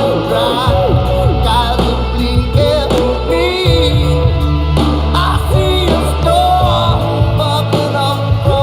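Pop-rock song with a lead singing voice over a steady bass line.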